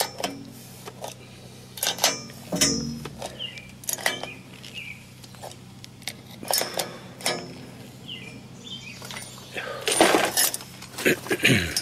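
Metal clinks and knocks of an adjustable wrench working the nut and square-head bolt on a steel earth-anchor head, as the bolt is worked into its square hole to seat it. The clicks come irregularly, with a longer, louder scraping rattle about ten seconds in.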